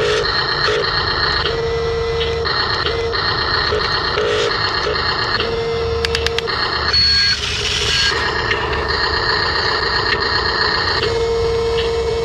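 Electric motors of radio-controlled construction models whining as they work, the pitched whine cutting in and out every second or so as the controls are moved, over a steady low hum. A brief noisy rush comes about seven seconds in.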